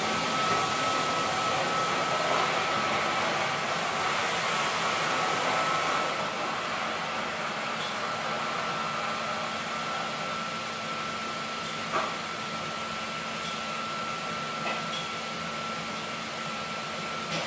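Walk-behind floor scrubber-dryer running: a steady whir with a high whine from its motor, the top end dropping a little about six seconds in as it moves off across the floor. A short click about twelve seconds in.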